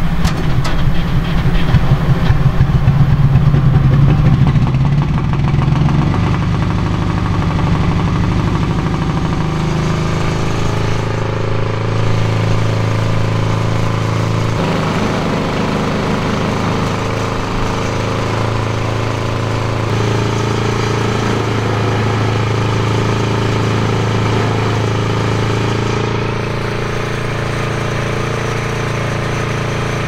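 Soviet T-100 bulldozer's 10,800 cc diesel engine running, rough and loudest for the first few seconds, then settling into a steady idle whose note shifts slightly a few times.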